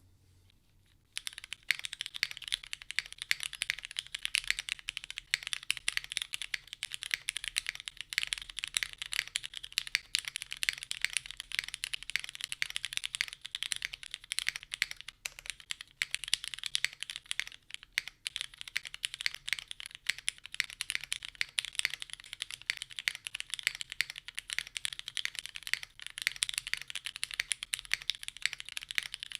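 Fast continuous typing on a plateless custom mechanical keyboard with lubed, filmed Cherry MX Black Ultraglide linear switches, TX springs and GMK doubleshot ABS keycaps: a dense run of keystroke clacks that starts about a second in.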